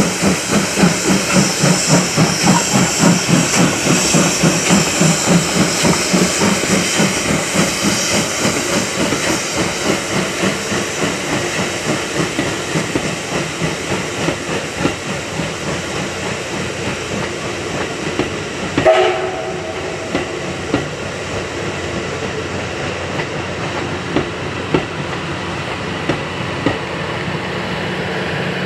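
JNR Class D51 steam locomotive D51 200 working a train, its exhaust chuffing in an even beat of about two a second that grows weaker over the first half. After that comes a steadier rolling noise of the train with occasional wheel clicks over rail joints. About two-thirds of the way through there is one brief sharp sound with a short tone.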